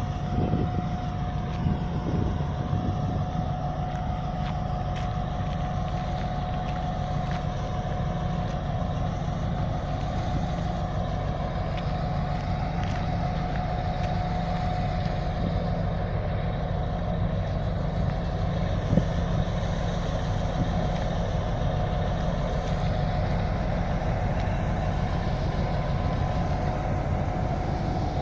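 M62 diesel locomotive idling while standing, its two-stroke V12 giving a steady low drone with a steady whine above it.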